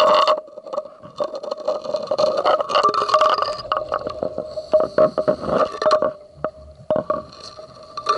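Underwater scuba sounds: the last of a diver's exhaled regulator bubbles in the first half-second, then a quieter stretch of crackling, clicking bubbles and faint scrapes over a steady hum.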